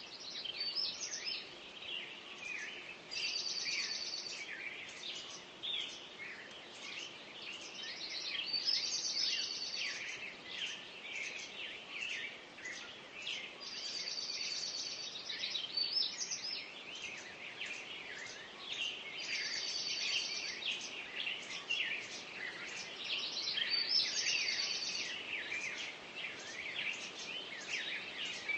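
Several birds singing together, a dense mix of overlapping chirps and whistles, with one short, fast trill repeated about every five to six seconds.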